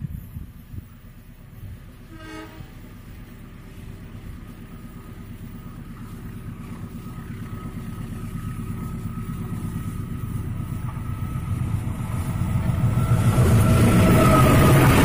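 Diesel-hauled passenger train approaching round a curve, its engine and wheels growing steadily louder until the locomotive passes close near the end.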